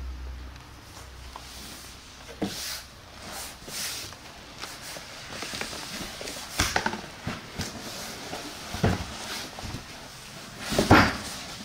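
Cardboard shipping cartons being handled: flaps rustling and cardboard scraping and knocking as a boxed amplifier is lifted and slid out of its outer carton, with the loudest knock near the end.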